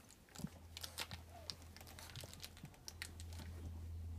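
Four-week-old Otterhound puppies scuffling and chewing on toys and bedding: faint rustling and crinkling with scattered small clicks, over a low steady hum that grows a little louder near the end.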